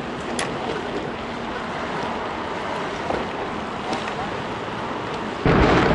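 Steady rushing noise of wind on the microphone of a camera riding on a moving bicycle, with a short click about half a second in. The rushing jumps suddenly louder just before the end.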